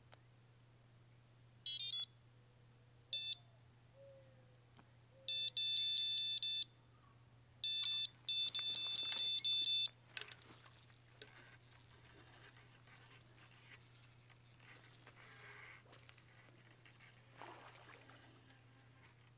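Electronic carp bite alarm on a rod pod beeping: two short beeps, then longer stretches of continuous beeping. The beeping stops about ten seconds in with a sharp snap as the rod is lifted, followed by faint handling noise.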